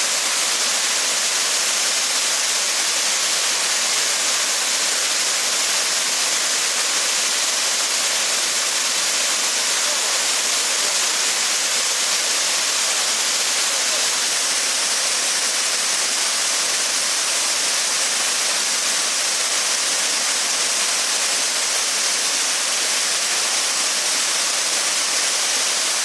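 Steady, unbroken rush of Shiraito Falls, a wide curtain of many thin streams of water pouring down a cliff face, with a strong hiss.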